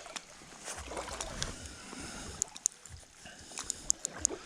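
Shallow creek water sloshing and gurgling as it is disturbed, with a quick series of faint clicks and taps in the second half.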